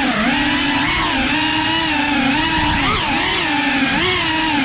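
GEPRC Cinelog cinewhoop drone's brushless motors and ducted propellers whining in flight. The pitch dips and rises about every second as the throttle is eased and added.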